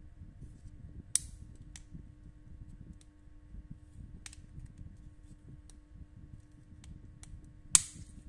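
Plastic comb attachment clicking against the head of a Philips BT1233 trimmer as it is handled and fitted, with two sharp clicks, about a second in and near the end, and fainter ticks between. A faint steady low hum lies underneath.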